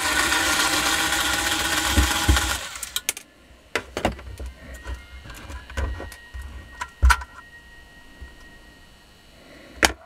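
A small hand-held power tool, held against a vacuum cleaner motor's end bracket, whirs steadily for about two and a half seconds and then stops. After that come scattered clicks and knocks of metal motor parts being handled.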